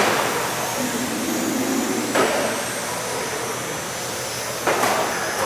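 Electric Vintage Trans-Am RC cars racing on a carpet track: high-pitched motor and gear whine sliding up and down in pitch as the cars speed up and slow, over a steady hiss. Three short sharp knocks stand out, at the very start, about two seconds in, and near the end.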